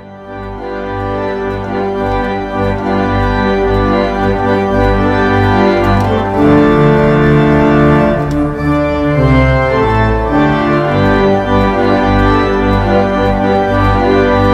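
Background music of sustained organ chords over a deep bass, swelling in over the first few seconds and then holding steady.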